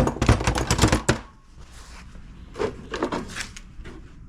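Tools and parts clattering and knocking as they are moved aside: a dense burst of clatter for about the first second, then a shorter burst near the middle.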